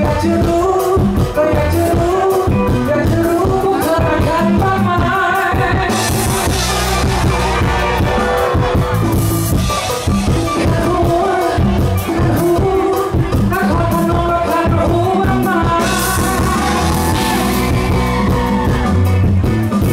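Live pop-rock band playing with a male lead vocalist singing over it. The band gets brighter and fuller twice, about a third of the way in and again near the end.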